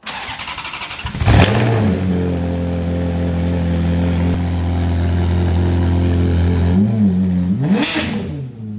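Car engine cranking over briefly, catching with a loud burst about a second in and settling into a steady idle, then blipped twice near the end before fading out.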